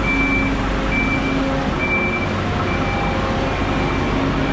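Travel lift moving under load: its warning beeper repeats a short high beep about once a second over the steady drone of its engine.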